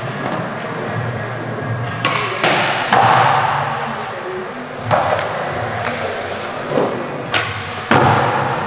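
Skateboard wheels rolling on smooth concrete, with about five sharp clacks and thuds of the board, loudest about three seconds in and near the end, over background music.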